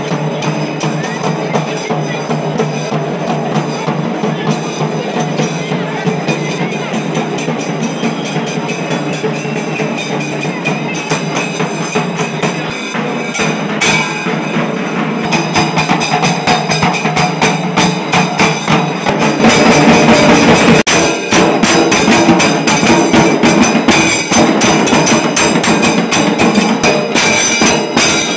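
Temple procession music: fast, dense percussion with ringing, bell-like metallic strikes. It grows louder about two-thirds of the way through.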